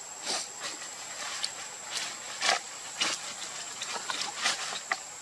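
A series of short, irregular rustling and scraping noises, the loudest about halfway through, over a steady high-pitched whine.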